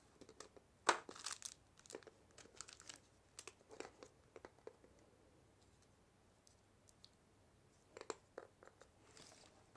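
Clear plastic packaging crinkling and crackling as it is handled, with scattered small clicks and taps as the tiny quadcopter and its controller are picked up. Most of the handling noise falls in the first half, with a few more clicks near the end.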